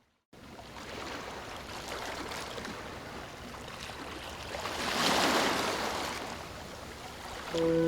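Ocean waves washing in, with one wave swelling louder about five seconds in and then receding. Near the end, sustained musical notes come in over the surf.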